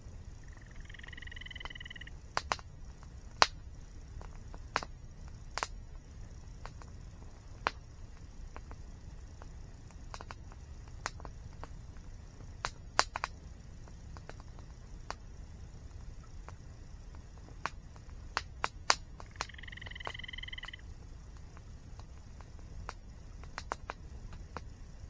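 Campfire crackling, with frequent sharp pops of burning wood, over the steady low rumble of a waterfall. Twice a bird gives one short held call, about a second in and again near 20 seconds.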